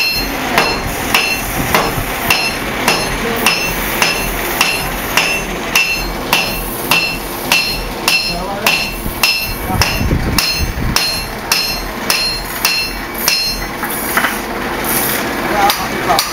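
A blacksmith's hammer is forging hot steel on an anvil, striking in a steady rhythm of about two to three blows a second, each with a bright metallic ring. The blows ease off briefly near the end, then resume.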